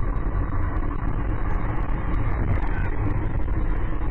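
Steady road and engine noise inside a car driving at highway speed, picked up by the dashcam, with a low rumble and no sudden impacts.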